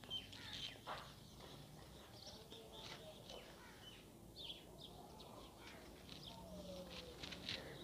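Birds chirping faintly: scattered short, high chirps over a quiet background.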